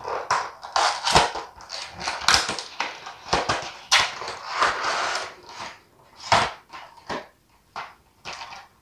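Handling and unboxing packaging: a cardboard toy box being turned and opened and a clear plastic blister tray slid out, with irregular rustling, crinkling and clicks that thin out near the end.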